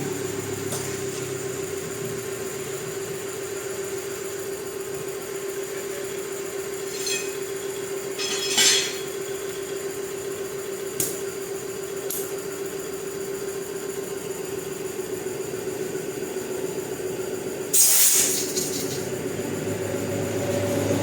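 An engine running steadily at idle, with a level hum. A few short metallic clinks sound over it, and a louder, sharper rattle comes near the end.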